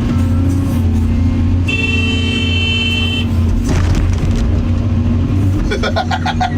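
Excavator's diesel engine running steadily. About two seconds in, a steady high tone sounds for about a second and a half, and near the end comes a quick run of short pulses.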